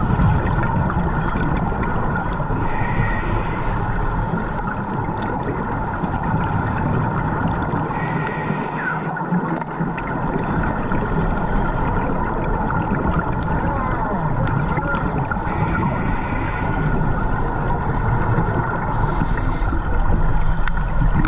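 Underwater sound through a camera housing: a steady rumbling hiss, with a scuba diver's regulator exhaling bubbles in bursts every few seconds.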